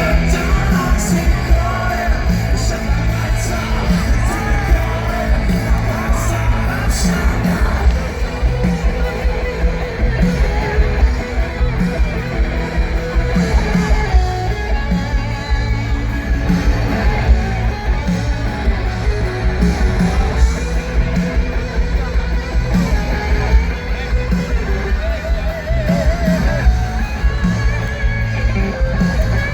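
Rock band playing live: a sung and shouted vocal over electric guitars, bass and a steady driving drum beat.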